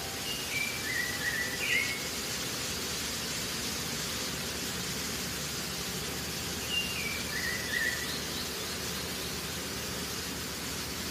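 A steady hiss, with a bird calling twice: each call is a short run of clear whistled notes stepping down in pitch.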